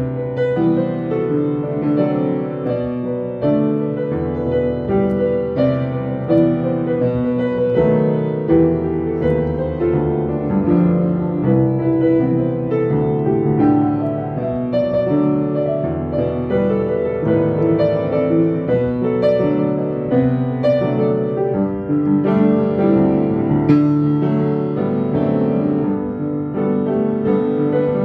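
Solo piano playing a pop song with both hands: a melody over sustained chords and bass notes, without pause.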